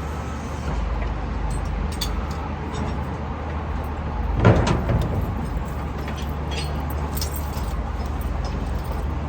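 A steady low mechanical hum, with a louder rough bump about four and a half seconds in and a few faint clicks.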